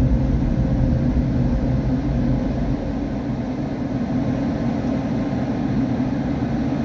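Steady, even rumble of automatic car wash machinery, heard muffled from inside the car's cabin.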